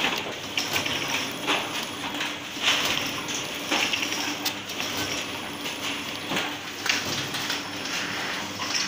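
Four-side sealing packaging machine running: a steady hum under sharp mechanical clacks that repeat roughly once a second.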